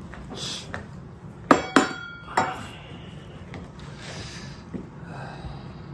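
Dishes clinking: three sharp knocks in quick succession, the first two ringing briefly.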